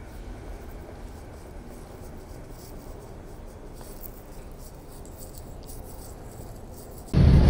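Faint rustling of clothing and phone handling with soft footsteps while walking. Near the end, a loud low vehicle rumble cuts in suddenly.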